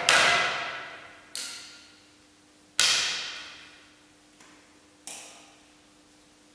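A series of sharp struck sounds, four clear ones and a faint fifth, each ringing and fading out over a second or two. The first and the one about three seconds in are the loudest.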